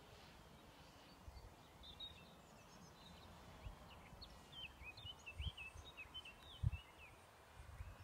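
Faint outdoor ambience with a small bird chirping in quick, short, bending notes from about two seconds in, and a few low thumps on the microphone, the loudest one near the end.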